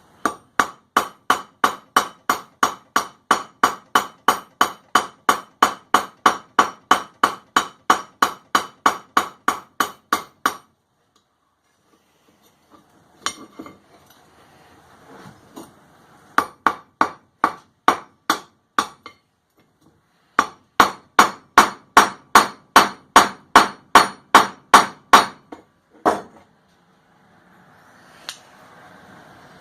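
Hand hammer cold-peening a steel rivet head: quick, ringing metal-on-metal blows, about three or four a second. They come in runs with short pauses between: a long run, then a couple of shorter ones.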